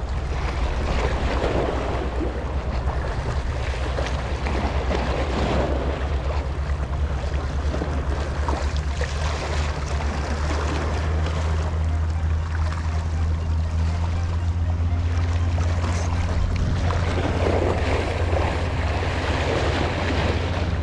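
Wind rumbling and buffeting on the microphone over the wash of sea waves against a rocky shore. The water noise swells a few times.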